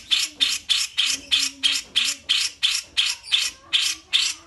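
A bulbul giving a fast, even series of harsh, rasping call notes, about three a second.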